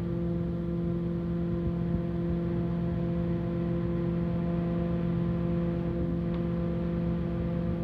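Steady machine hum with several fixed tones over a low rumble, the constant drone of commercial kitchen equipment; a faint tick or two on top.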